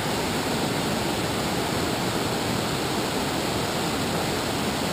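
River rapids rushing steadily, white water pouring over rocks close by.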